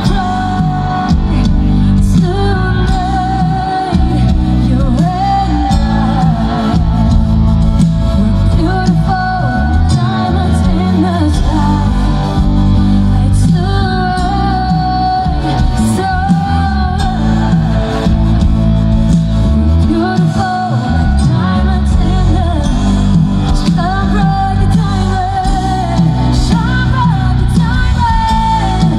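Live pop band with a female lead singer, amplified through a stage PA: she sings a melody into the microphone over bass guitar, keyboards and a heavy low end.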